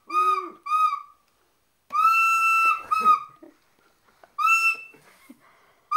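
Toddler blowing a plastic toy flute: five shrill toots on the same single high note, mostly short, with one longer blast of nearly a second about two seconds in.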